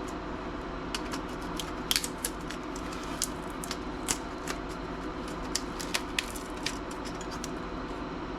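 Irregular sharp clicks and taps as small plastic and metal laptop parts and a circuit board are handled, with the loudest pair about two seconds in, over a steady low hum.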